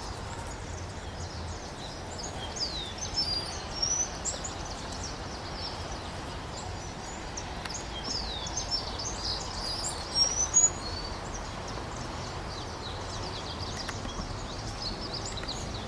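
Several small birds giving short, high, mostly falling chirps and twitters. The calls come in scattered bunches, loudest a few seconds in and again around the middle, over a steady low background noise.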